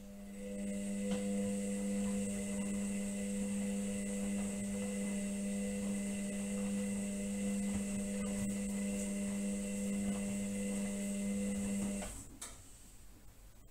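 Indesit washing machine's drum motor running with a steady hum and a fainter high whine as the drum tumbles the wet wash load, then cutting out about twelve seconds in at the end of the tumble.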